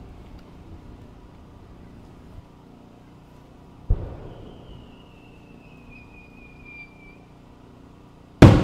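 Aerial firework shell: a launch thump from the mortar about four seconds in, then a thin whistle lasting about three seconds and falling slightly in pitch as the shell climbs, then a much louder bang with an echoing tail as it bursts near the end.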